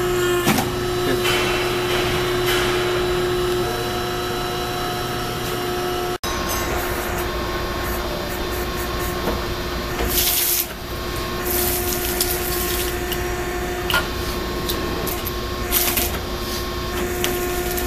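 Electric hydraulic power units of a motor-recycling machine running with a steady hum and a constant tone. The sound cuts out for an instant about six seconds in. In the second half come short hissing bursts and a few sharp metallic clicks.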